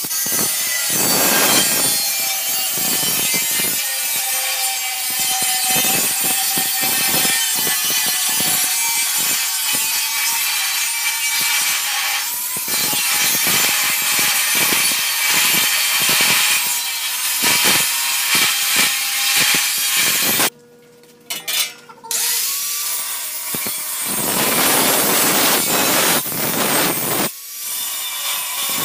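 Electric angle grinder with a thin cutting disc slicing through galvanized steel sheet: a loud, hissing grind over a steady motor whine. It breaks off briefly a little past two-thirds through, then resumes, with one more short dip near the end.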